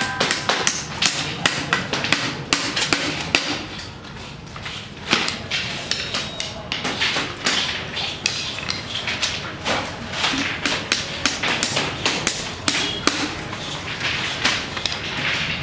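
Hammer driving nails into a cane furniture frame: sharp, irregular blows, a few a second, with a short lull about four seconds in.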